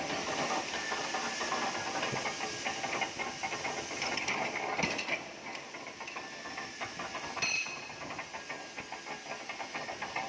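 CNC oxy-fuel gas-cutting torch cutting steel plate: a steady hiss with dense crackling sputter. A brief metallic ring about seven and a half seconds in.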